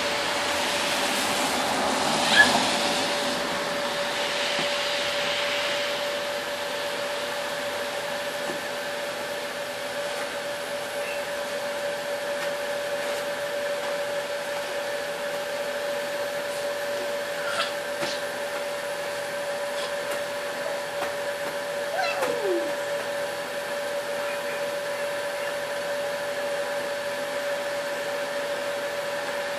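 Small fan motor of a battery-powered toy bubble machine running with a steady whine over an even hiss. There is one short sharp sound about two seconds in and a few faint clicks later on.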